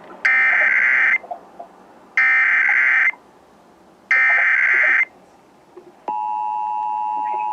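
Emergency Alert System SAME header: three identical screeching digital data bursts, each about a second long and two seconds apart. About six seconds in, the steady two-tone EAS attention signal starts.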